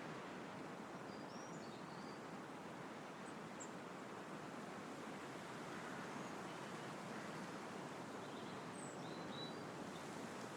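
Wind blowing through trees, a steady rustling hiss, with faint small bird chirps about a second in and again near the end.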